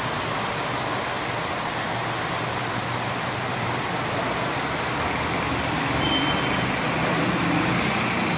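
Steady rushing background noise with no clear source, and a faint high whistle that rises and falls about halfway through.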